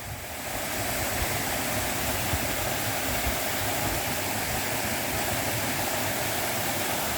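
Waterfall rushing: a steady, even rush of falling water that builds slightly in the first second and then holds level.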